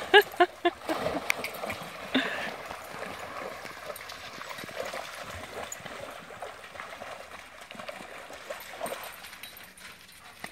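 Dogs splashing and wading through a shallow creek, the water sloshing and churning, getting gradually quieter as they reach the gravel bank. A few short pitched vocal sounds in the first second or so.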